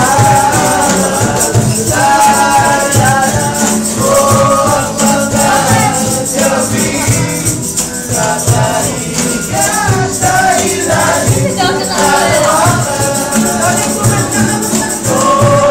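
Live acoustic music: two acoustic guitars strummed with a cajon keeping a steady beat, and men singing the tune.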